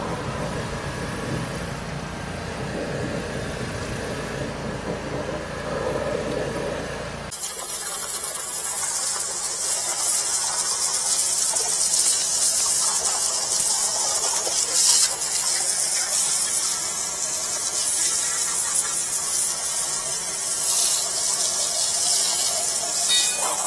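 Engine of a high-pressure drain jetter running steadily. About seven seconds in it switches abruptly to a steady high-pitched hiss of the water jet spraying as the hose is fed down a drain.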